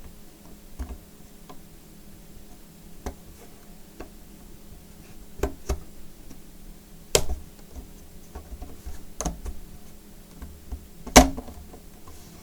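Scattered small plastic clicks and taps as the display bezel of a Dell Precision 7540 laptop is worked loose, with two sharper snaps about seven and eleven seconds in.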